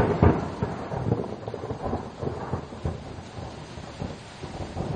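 Thunder: a sudden loud crack right at the start, then a crackling rumble that fades over about three seconds, with a smaller swell near the end. Steady rain runs underneath.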